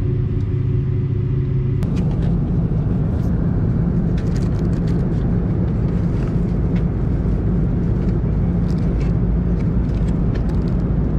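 Airliner cabin noise: a loud, steady rumble of engines and air. From about two seconds in it carries faint clicks and crinkles of a plastic meal box and cling-film wrapping being handled.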